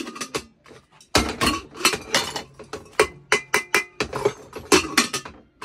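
Metal pots and pressure-cooker bodies clanking and clinking against each other and the counter as they are handled: a quick, irregular run of sharp ringing knocks, with a short lull about half a second in.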